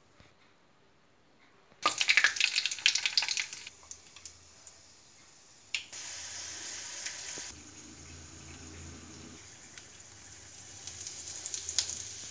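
Dried red chillies frying in hot oil in a kadai: a sudden loud crackling sizzle about two seconds in as they hit the oil, settling into a steady, quieter sizzle that picks up with more crackling near the end.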